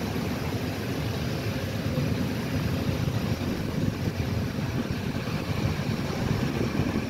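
Steady rumble of a moving passenger train heard from inside the carriage: wheels running along the rails.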